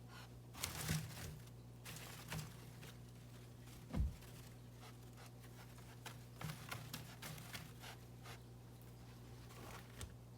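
An animal breathing hard in short, noisy breaths while it scrabbles and rustles, with one loud thump about four seconds in, over a steady low hum.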